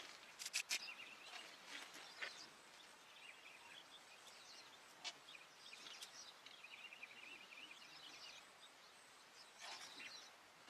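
Faint crackling of a small pine-wood fire in a fire bowl, with a few sharp pops. Soft chirping calls sound in the background.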